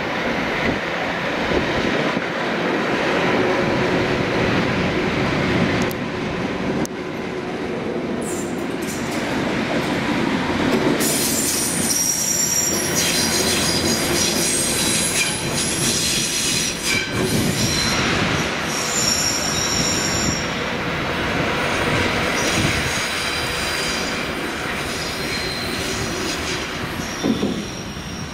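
Class 232 'Ludmilla' diesel locomotive running, its 16-cylinder Kolomna diesel engine and wheels on the rails heard together. From about eleven seconds in, high-pitched wheel squeal comes and goes as it rolls through the yard's curves and points.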